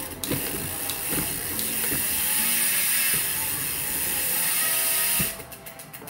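Rear wheel of a mountain bike spinning freely on a stand, its Strummer freehub's pawls clicking so fast they make a steady buzz, which stops fairly suddenly about five seconds in.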